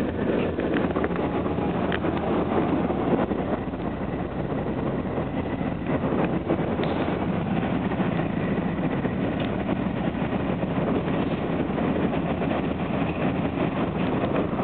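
Lashup of CN six-axle diesel locomotives, two GE C44-9Ws and two SD40-2Ws, running as they push a long grain train: a steady diesel drone mixed with wheel and rail noise.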